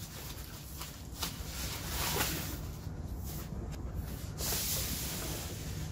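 Thin foam packing sheet rustling and crinkling as it is handled and pulled back from a monitor, with scattered short crackles.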